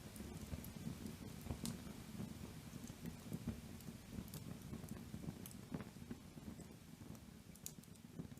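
Wood fire crackling in an outdoor fireplace, with scattered sharp pops and snaps over a low rumble.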